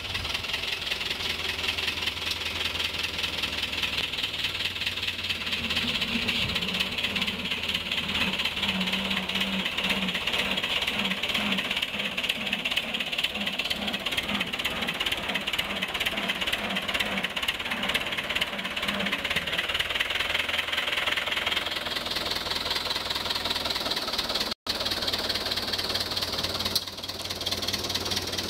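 Fordson Power Major tractor's four-cylinder diesel engine running with a fast, even firing beat as the tractor is driven. The sound drops out for an instant about three-quarters of the way through.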